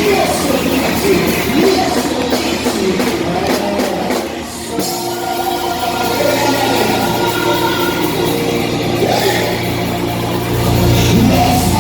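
Music with singing, in a rock style, with held notes in the second half and a deeper bass coming in near the end.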